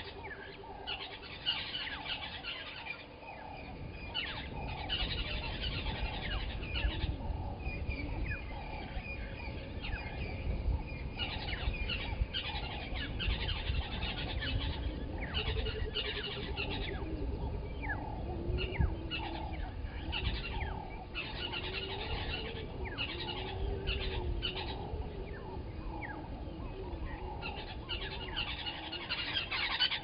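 Morning bird chorus: many overlapping chirps and calls, with a lower call repeated steadily about every half second. A low rumble sets in a few seconds in, and there is a loud cluster of calls near the end.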